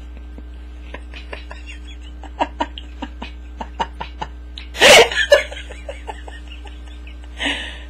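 A person laughing in a quick run of short bursts about five seconds in, much the loudest sound, amid light scattered taps and rustles from a cat playing with a feather wand inside a mesh laundry basket.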